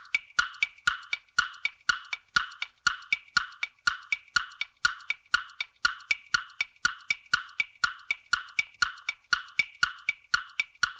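Quiz countdown-timer sound effect: a fast, even, wood-block-like tick-tock, with the clicks alternating between two pitches.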